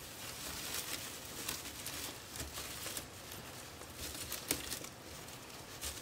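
Dry floral moss and twig wreath rustling and crackling faintly under the fingers as loose moss is pushed into gaps in the twigs, in a scatter of small crackles.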